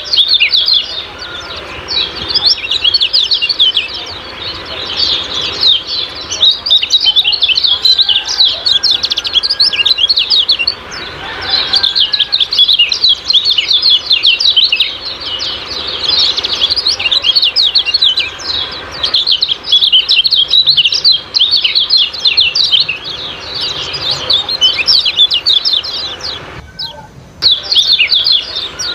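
Kecial kuning songbird giving rapid, high 'ciak-ciak' chirps in dense, continuous bouts, with a short break about eleven seconds in and another near the end.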